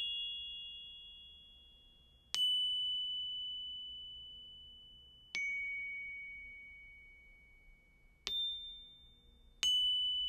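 High, bell-like chime notes struck one at a time, about every two to three seconds, each ringing out and slowly fading; sparse instrumental notes of the soundtrack music.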